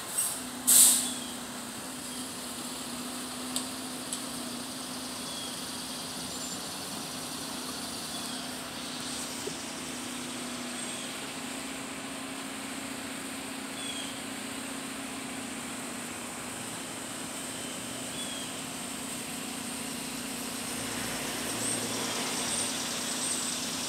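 Steady low hum of an idling vehicle engine, with the steady high buzz of cicadas above it. A sharp knock sounds about a second in, and the hum swells slightly near the end.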